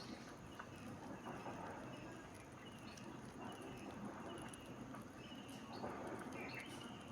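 Short, high chirps repeating about once a second from the small animals feeding at the rice, with scattered light taps in between.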